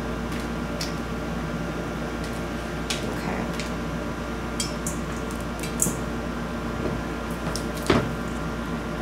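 Chopped onion and pepper pieces scraped off a cutting board into a stainless steel mixing bowl: scattered light taps and clicks, with one sharper knock near the end as the board and bowl are handled, over a steady hum.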